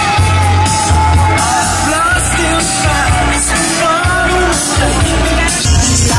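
Music with a sung lead vocal over a heavy, pulsing bass beat.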